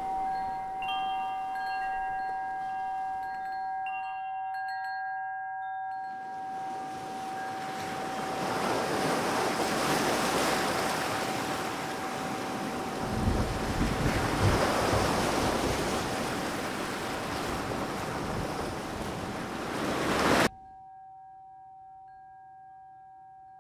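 Ambient soundtrack score: a steady held tone with chime-like bell notes over it, then a loud rushing swell of noise that builds, with low rumbles about halfway through. The rush cuts off suddenly near the end, leaving the held tone and faint chimes.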